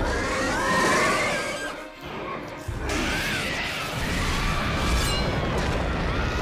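Cartoon action soundtrack: dramatic music over crashing, rumbling destruction sound effects, with the rumble breaking off briefly around two seconds in and coming back heavier.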